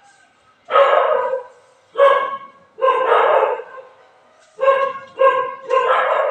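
A dog barking over and over, about six drawn-out barks, each half a second to a second long, with short pauses between them.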